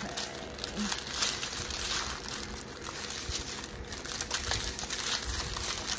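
Small plastic bags of diamond-painting drills being handled and spread out, the plastic crinkling and rustling with small clicks throughout.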